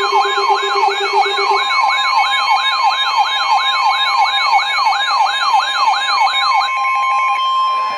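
Emergency alert sounds announcing a severe thunderstorm warning: a siren-like falling sweep repeats about three times a second over several steady high alert tones. Near the end the sweeps stop and one steady tone runs on alone.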